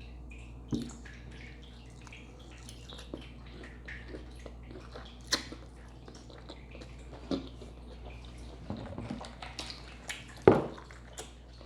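Close-miked eating of a dressed lettuce salad: irregular wet, crunchy chewing and mouth sounds with a scatter of sharper crunches or clicks, the loudest about ten and a half seconds in.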